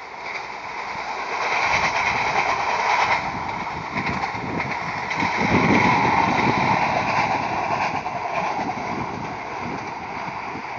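SA137 diesel railcar set passing by, its engine and running sound swelling over the first couple of seconds, loudest about halfway, then fading as the train moves away.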